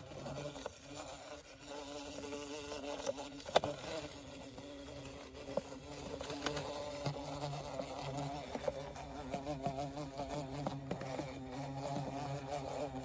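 Carpenter bees buzzing inside a plastic container: a steady buzz that wavers a little in pitch, with one sharp click about three and a half seconds in.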